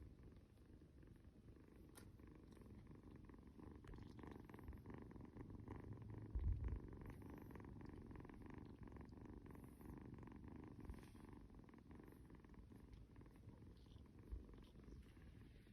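A kitten purring faintly and steadily, close to the microphone. A soft low thump about six and a half seconds in.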